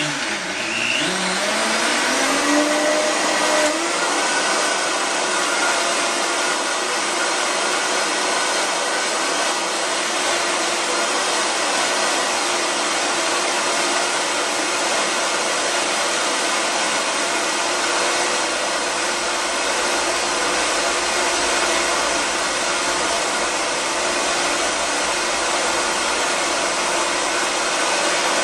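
Countertop blender running. Its motor pitch rises over the first few seconds as it speeds up, then it holds a steady whir while blending basil leaves and olive oil into an emulsified sauce.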